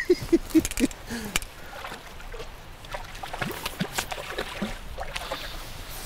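Small splashes and plops of water as a hooked trout thrashes at the surface near the bank, a quick run of them in the first second, then scattered ones.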